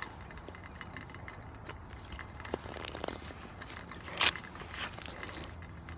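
Rustling and clothing noise close to the microphone, with scattered small clicks, and a short rip about four seconds in as the hook-and-loop wrist strap of a Franklin batting glove is pulled open.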